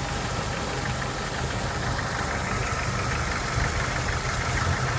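Jeep YJ Wrangler's 2.5-litre four-cylinder engine idling steadily with a fast valvetrain tick. The owner takes the tick for flat or worn lifters, most noticeable while the engine is still cool.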